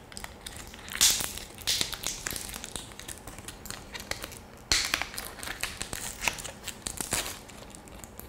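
Plastic blister packaging of a new SD card crinkling and crackling as it is handled and opened by hand, in irregular rustles with a few sharper crackles.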